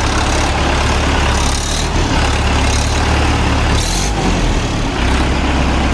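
Mahindra 585 DI XP Plus tractor's four-cylinder diesel engine running steadily with a deep, even rumble. Two brief hissing noises come about two and four seconds in.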